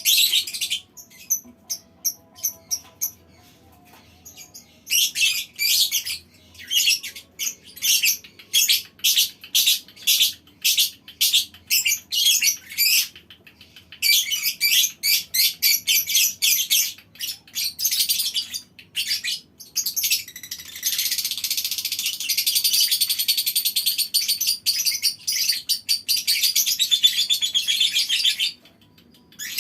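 A colony of lovebirds chattering in rapid, high-pitched chirps. The chirps are sparse for the first few seconds and then dense. About two-thirds of the way in they run into one unbroken chattering trill of about eight seconds, the long 'ngekek' call that lovebird keepers prize.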